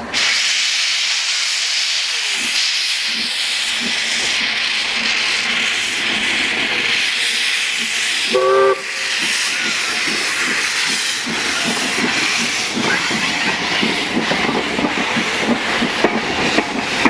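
Bagnall saddle tank steam locomotive approaching with its cylinder drain cocks open, hissing steadily. It gives a short whistle blast about halfway through, then its rhythmic beats grow louder as it passes close.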